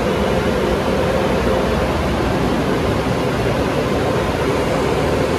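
Water from a car wash tunnel's overhead spray arch beating down on a car's body as a steady rushing hiss, with a faint steady hum beneath it.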